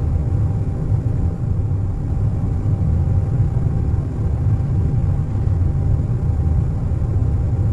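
Steady low rumble of an airliner cabin in cruise flight, a deep even hum of engine and airflow noise with a faint steady tone in the midrange and no separate events.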